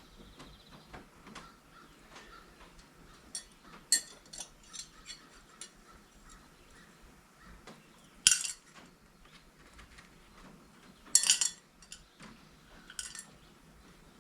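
Metal hand tools clinking and clattering. There are sharp clinks about four, eight and eleven seconds in, with lighter ticks and taps between them.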